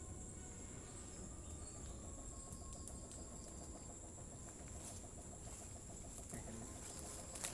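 A rapid, even series of knocking calls from an animal in the forest, about five a second, over a steady high insect drone. The speaker says this 'tok-tok' sound is usually a king cobra.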